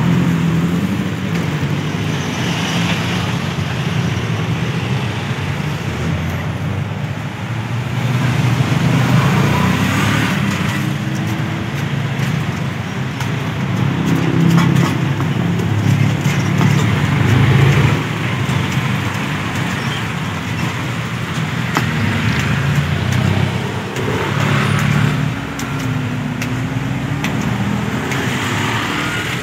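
Steady road traffic noise from a busy street, cars and motorbikes going by.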